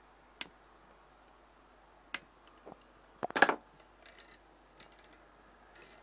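Sharp clicks from small hand tools working at a circuit board. A louder short clatter comes about three seconds in as the plastic PCB holder is gripped and the board turned, followed by a few faint ticks.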